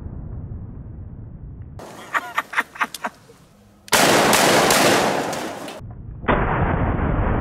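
A single 12-gauge shotgun blast from a Chiappa Triple Threat about four seconds in, the loudest sound, dying away over about two seconds. Before it, a muffled low rumble and a quick run of five or six sharp clicks; after it, a loud muffled rumble returns.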